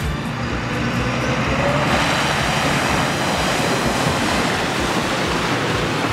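A New Holland T7.230 tractor and its Dangreville manure spreader driving through a deep puddle, the engine running under a loud rush of water as the tyres splash and spray through it. The splashing swells about a second in and stays heavy for several seconds.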